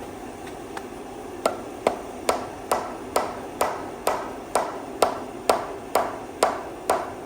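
Hammer striking metal in a steady run of about a dozen blows, a little over two a second, each with a short ring. The blows start about a second and a half in.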